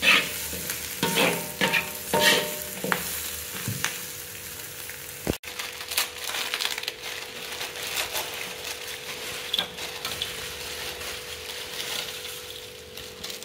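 A metal spatula scrapes and tosses greens and egg in a blackened wok as they sizzle in oil, several strokes in the first few seconds. After an abrupt break about five seconds in, instant noodles cook in the wok with a steady sizzle and light spatula taps.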